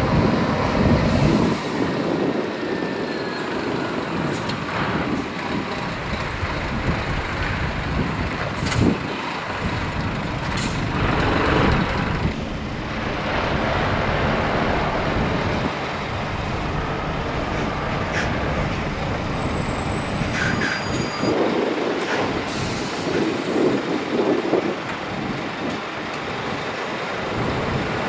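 Scania truck on the move: continuous engine and road noise that swells a few times, with several sharp clicks.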